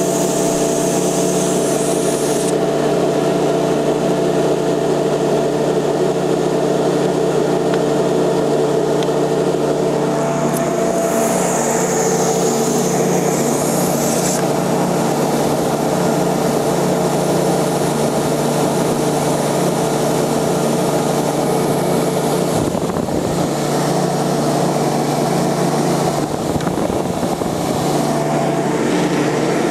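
Ruwac WNS/WS-series industrial vacuum running steadily after restart: a constant motor hum under loud rushing air. The airflow sound changes briefly about ten seconds in and again shifts around two-thirds of the way through.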